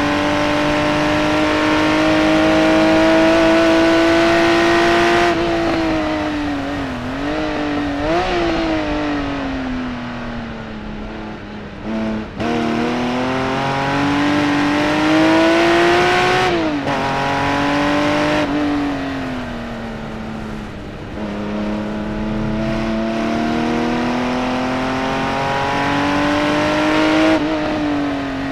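Porsche 911 Reimagined by Singer's naturally aspirated 4.0-litre flat-six on a hard lap, heard from inside the cabin. The engine note climbs under acceleration and drops sharply at each gearchange, with two quick throttle blips on downshifts and a falling note under braking.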